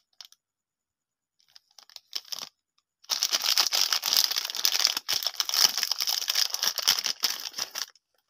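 Plastic wrapper of a Lotte Choco Pie crinkling in the hands, a few short crackles at first, then about five seconds of continuous crackling and tearing as the packet is torn open, stopping just before the end.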